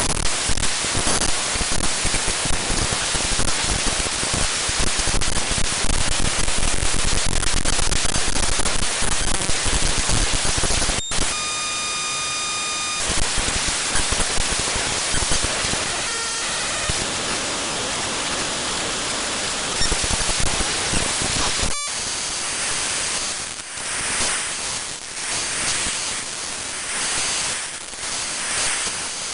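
Television static, a loud steady hiss. About eleven seconds in it breaks off briefly and a steady buzzing electronic tone sounds for about two seconds; a second brief dropout comes near twenty-two seconds, after which the static wavers in level.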